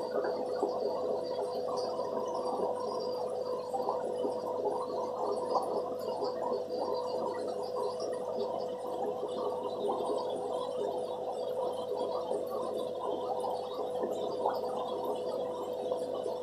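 Aquarium aeration bubbling and gurgling steadily, with a steady hum underneath.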